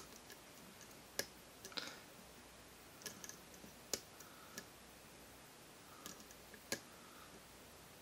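Faint pin clicks from a hand-made pin-tumbler challenge lock as a hook pick pushes up the pins under tension: about eight light, irregularly spaced clicks, the small pin clicks a picker feels and hears while working the stacks.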